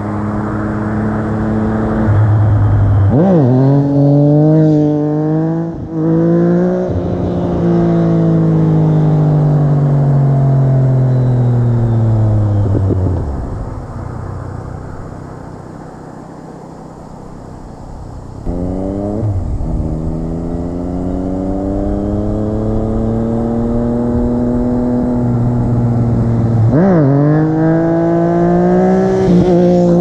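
Yamaha FZ-09 inline-three through an Akrapovic exhaust with the baffle in, revving hard up through the gears with a quick dip in pitch at each shift, then a long falling note as the throttle eases. It fades about halfway through, then comes back suddenly with more hard revving and shifts.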